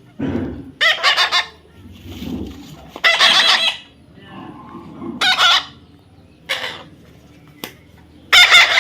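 A parrot giving a series of loud, short squawking calls, about five in all, with softer calls between them.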